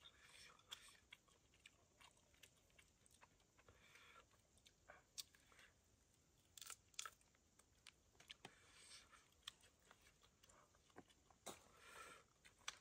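Near silence with faint, scattered short clicks and crackles and a few brief soft rustles.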